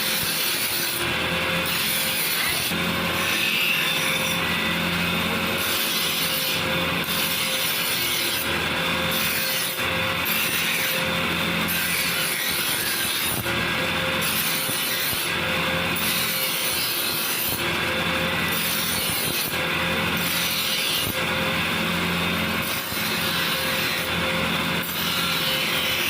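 Motor-driven tool, most likely a grinder, working on knife steel: a steady hum under a rasping grind that swells about once a second as the work is passed back and forth.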